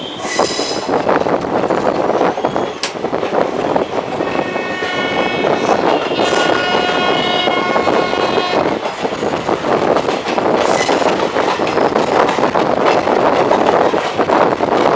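Train running along the track, a steady rumble, with a horn sounding for about four seconds in the middle.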